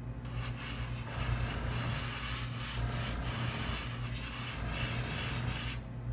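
Airbrush spraying a thinned black base coat: a steady hiss of air and paint that starts just after the beginning and cuts off shortly before the end, over a constant low hum.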